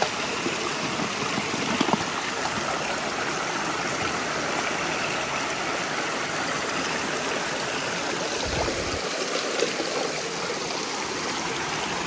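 Steady rushing of a shallow waterfall, water streaming over a rock face.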